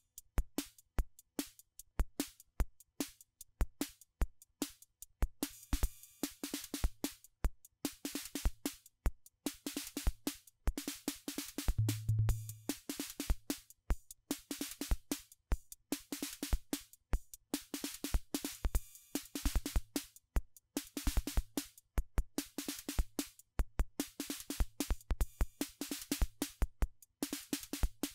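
Drum machine beat in a steady, fast rhythm: low drum hits under bright, noisy cymbal and hi-hat strikes. The cymbal strikes are typical of a BOSS DR-110 analog cymbal sound made from filtered white and metallic noise.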